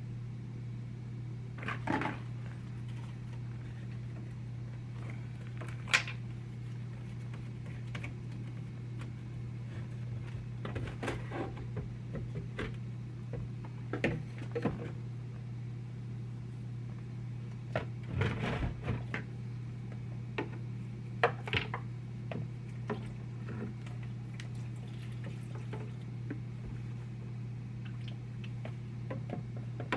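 Scattered clicks and knocks of hands working with parts and tools during a garbage disposal install, over a steady low hum.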